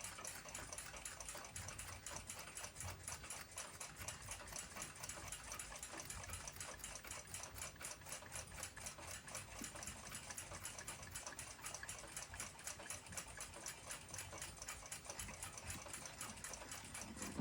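Seikosha ship's clock movement ticking: faint, quick, evenly spaced ticks, several a second, that keep on without a break.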